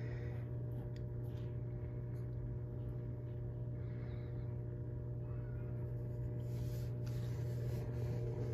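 Steady low electric hum of aquarium water pumps running, with soft rubbing noises near the end.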